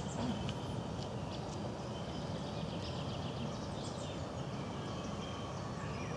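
Outdoor ambience: a steady low rumble with small birds chirping in short, scattered notes above it.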